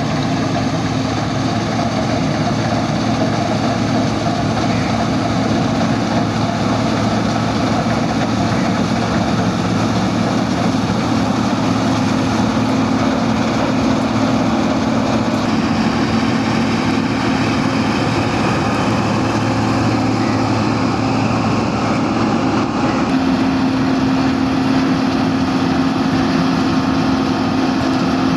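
New Holland 8070 combine harvester running steadily while harvesting, a constant engine drone with no letup.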